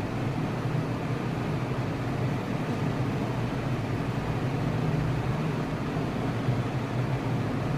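A steady low hum over an even hiss, unchanging throughout, with no clicks or cracks.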